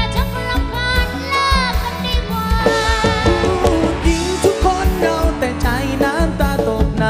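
Mor lam sing band performing: a singer's voice with sliding pitch over a steady drum beat and bass.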